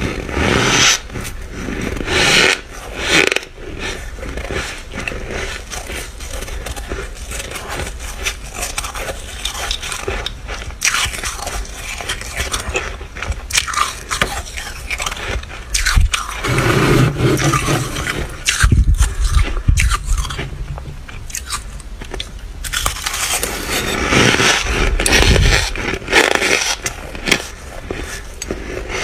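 Flaky freezer frost being scraped loose and bitten and chewed close to the microphone: repeated crunching and crackling bites with scraping in between.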